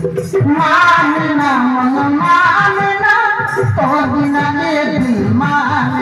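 A singer holding long, wavering notes over a steady drum beat: Bastari naat folk-theatre music.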